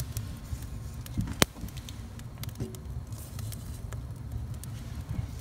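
Kindling fire crackling in a wood-stove firebox, with scattered small pops and one sharper crack about a second and a half in, over a low steady rumble. The crackling is the sign that the wood is starting to catch.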